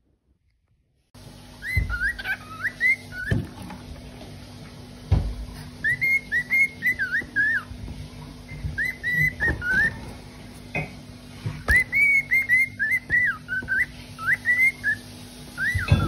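Cockatiel whistling its song, starting about a second in: phrases of quick rising and falling whistled notes with short pauses between them, and a few low bumps.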